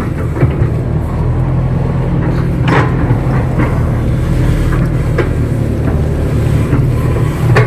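Kato tracked excavator's diesel engine running steadily under working load, with a few sharp knocks scattered through it.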